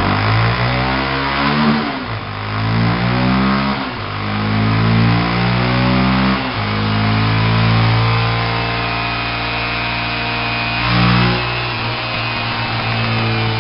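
Car engine revved through a Roncar 2way+ aftermarket exhaust, which has a valve that switches between sport and stock sound. Three quick rev blips in the first six seconds, then several seconds held at steady higher revs, a short blip about eleven seconds in, and settling back to a lower idle.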